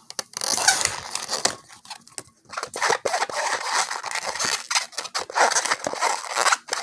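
Latex twisting balloon rubbing and stretching under the fingers as a finger is pushed into a bubble: a run of short scratchy rubs, with a brief lull about two seconds in.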